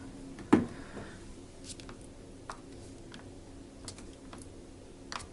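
A few sharp clicks, the loudest about half a second in, from buttons being pressed on a Japanese bidet toilet's control panel; the bidet does not respond, and no water spray is heard.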